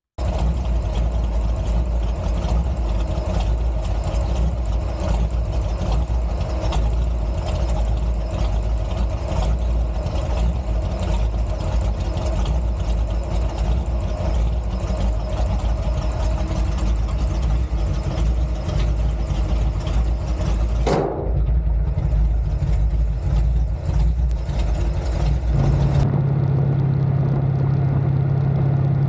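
Mopar 318 small-block V8 running steadily, heard close up under the hood. About 21 seconds in there is a brief whoosh, and from about 26 seconds the sound changes to a steadier low hum.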